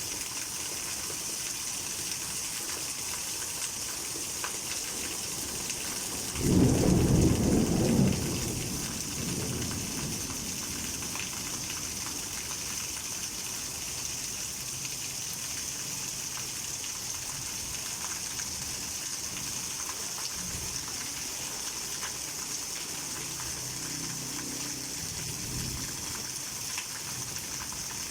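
Heavy rain falling steadily, with a loud clap of thunder about six and a half seconds in that rumbles on and dies away over the next few seconds.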